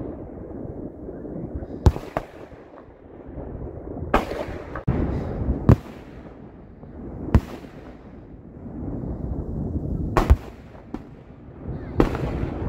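Fireworks display with aerial shells bursting: a sharp bang every one to three seconds, about six in all, with rumbling and crackling between them.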